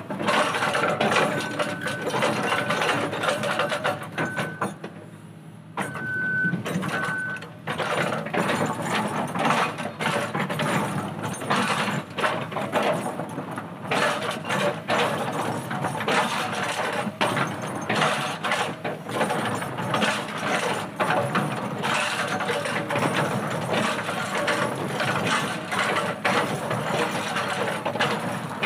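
An excavator-mounted hydraulic breaker hammering on boulders: a fast, rattling stream of blows over the excavator's running diesel engine, with a short lull about five seconds in. A few short high beeps sound in the first several seconds.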